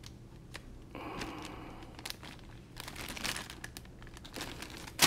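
Rustling and rummaging as objects are moved about by hand on a workbench, with scattered light clicks and one sharp, loud click at the very end.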